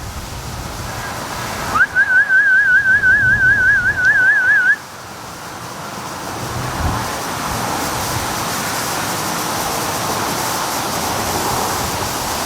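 Duck-calling whistle: a short rising note, then a warbling trill held for about three seconds, calling the ducks home. Strong wind rushing on the microphone throughout.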